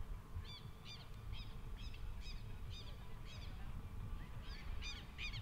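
A bird calling repeatedly in short, sharp, high calls, about two a second for several seconds, then a brief pause and a quicker run of calls near the end, over a steady low rumble.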